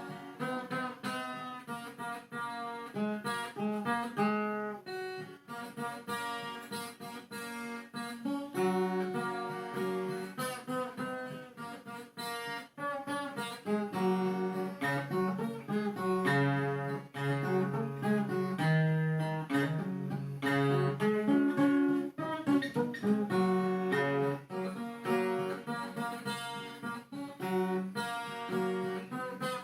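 Viola caipira, the Brazilian ten-string folk guitar, playing a plucked solo: quick runs of single notes over lower bass notes.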